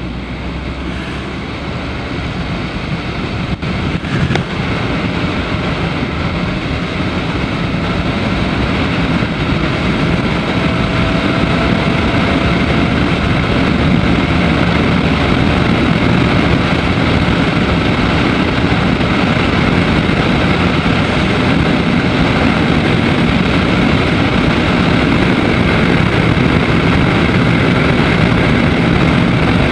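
Daelim Daystar 125cc V-twin motorcycle running at road speed, its engine mixed with a steady rush of wind and road noise. It grows louder over the first dozen seconds, then holds steady.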